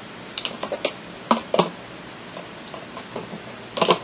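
A few light clicks and knocks from a plastic funnel and empty plastic drink bottles being handled, with a quicker cluster of knocks near the end.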